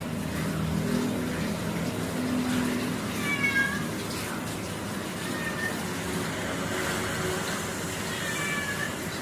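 Pet cat meowing while being bathed: a short meow about three and a half seconds in, a fainter one midway, and another near the end.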